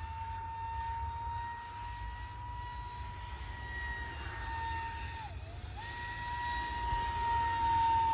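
Small electric ducted fan of a scratch-built 50 mm RC jet, whining steadily at a high, even pitch over a low rumble. Just past halfway the whine dips in pitch and fades for about half a second, then comes straight back to its former pitch.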